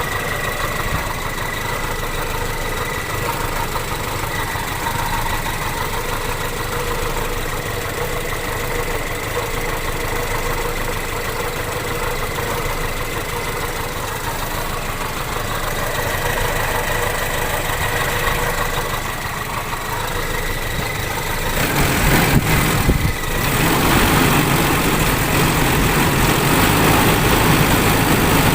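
Toyota Kijang Super's 5K four-cylinder engine idling with the bonnet open, carrying an on-and-off rough snoring, grinding 'krok krok' noise. The owner suspects a dry, worn belt-driven part outside the engine: the fan belt, the AC compressor or a pulley. The sound grows louder about three-quarters of the way through.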